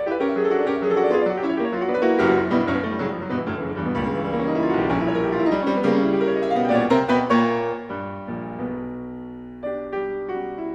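Piano music, a busy run of many notes that thins out and softens near the end.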